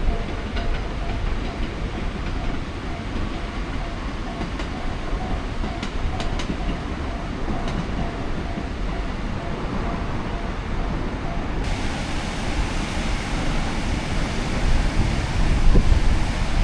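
Steady rumble and hiss of a vehicle in motion, with a faint steady hum and a few light clicks; the hiss changes character about two-thirds of the way through.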